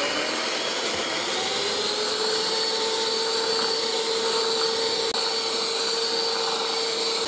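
Electric hand mixer running at top speed, its beaters whipping cream and icing sugar in a metal bowl. The motor whine rises in pitch over the first second or two, then holds steady.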